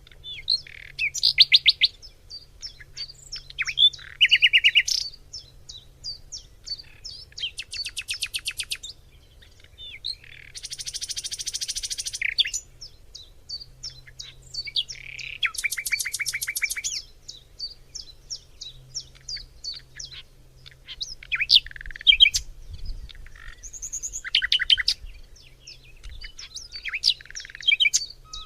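Several forest songbirds singing together: a steady run of short high chirps, broken by rapid trills and a buzzy phrase about eleven seconds in.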